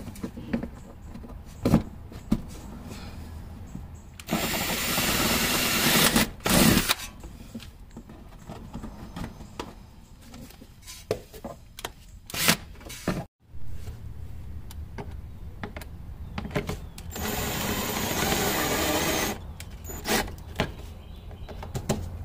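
A power drill runs twice, for about two seconds each time, about four and about seventeen seconds in: first drilling a hole, then driving in a screw that pulls a fender clip up into the bumper corner. Small clicks and knocks of handling come between the two runs.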